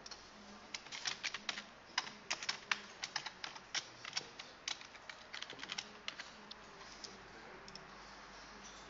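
Computer keyboard typing: a quick, irregular run of key clicks that stops about six and a half seconds in.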